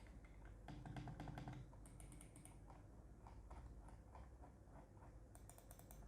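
Faint, quick clicking of the GAMDIAS Hermes P1B gaming mouse's buttons, barely audible: the mouse switches are almost silent.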